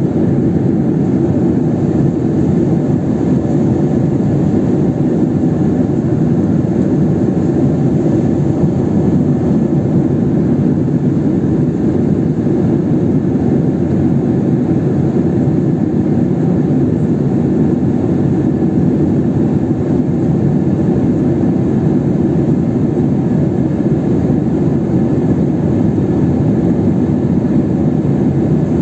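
Steady cabin noise of an airliner in flight, heard from inside the cabin at a window seat: an even, unchanging drone of engines and rushing air.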